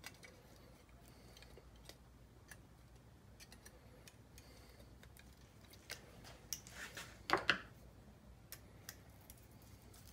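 Scattered faint plastic clicks and taps from handling a small DC motor and its replacement plastic housing while lining up the screw holes, with a brief burst of louder clacks about seven seconds in.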